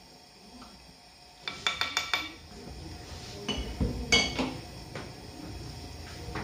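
A metal spoon clinking against a glazed clay tajine dish: a quick run of about six light ringing taps about a second and a half in, then a few more clinks with a duller knock around four seconds in.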